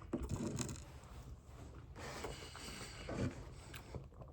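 Chewing a glazed donut topped with Fruity Pebbles cereal, close to the microphone: irregular short crunching and rubbing sounds, with a longer rustling stretch about two seconds in.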